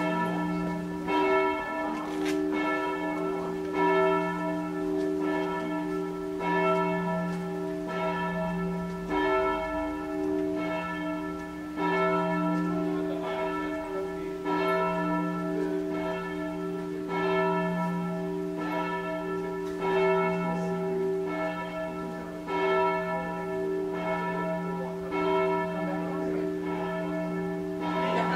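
Church bells ringing: evenly repeated strikes about every second and a third, each leaving a long ringing hum that carries on under the next strike.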